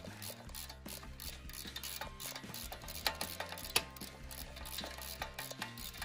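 Hand tools clicking and clinking against metal at a Jeep Wrangler's front wheel hub, an irregular run of sharp ticks with a few louder knocks about three seconds in, over a low steady hum.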